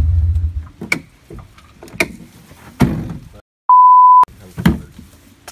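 A half-second, perfectly steady 1 kHz censor bleep, the loudest sound here, cut in over a word after a moment of dead silence. Around it, a low engine rumble dies away in the first second, then four sharp thunks like doors shutting.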